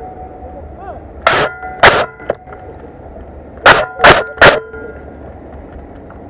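Airsoft gun firing single shots: two about half a second apart about a second in, then three more in quick succession near four seconds.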